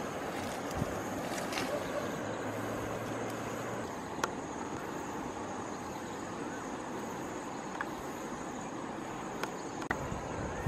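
Steady outdoor rustling noise, like wind and foliage, with a thin high steady tone and a few short sharp clicks.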